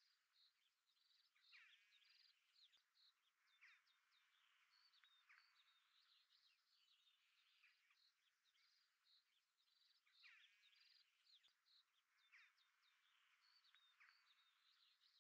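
Near silence with very faint birdsong: a continuous run of quick chirps and short trills.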